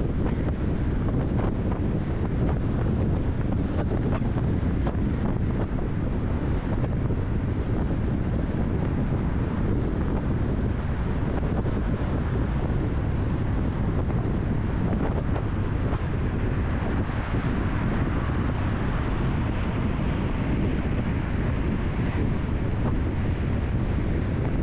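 Wind buffeting the microphone over the road noise of a moving car, a steady low rumble. The hiss grows a little brighter for a few seconds past the middle.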